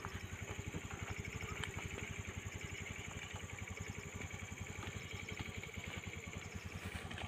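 A small engine running steadily with a fast, even low throb, and faint high chirps in short groups every second or so.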